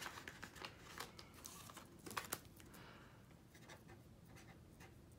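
Faint crinkling of clear plastic zipper-pouch pages in a ring binder being handled, with a few light ticks in the first half, then near silence.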